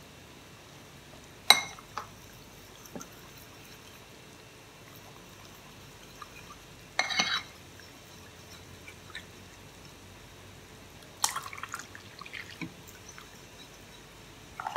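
A metal fork clinking against a ceramic mixing bowl in a few separate bursts, as water is stirred into rice flour and starch. The first clink, about a second and a half in, is the loudest, with short clusters of clinks around the middle and again later.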